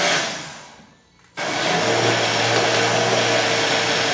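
Countertop blender mixing a thick batter of flour, eggs, water and oil. The motor is switched off and winds down over about a second, goes quiet briefly, then starts again sharply and runs steadily.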